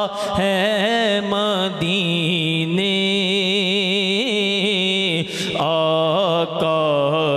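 A man singing a naat, a devotional Urdu song, into a microphone, drawing out long held notes without words that waver in quick ornamental turns.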